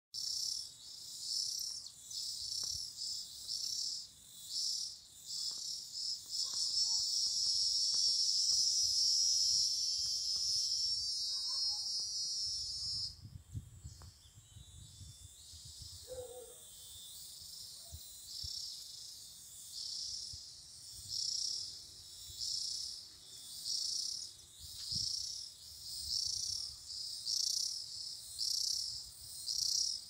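Insect chorus: a high buzzing that pulses a little more than once a second, swells into one continuous loud buzz for several seconds, cuts off abruptly a little before halfway, then resumes its pulsing.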